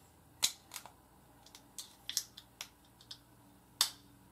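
Irregular sharp clicks and snaps of small plastic being picked and pried at with scissors tips, trying to free a piece stuck in a small bottle. There are about six or seven clicks, the loudest about half a second in and near the end.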